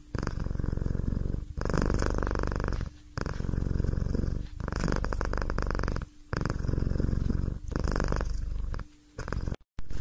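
A cat purring close up, in a steady in-and-out rhythm that rises and dips with each breath, about every second and a half. It cuts out briefly near the end.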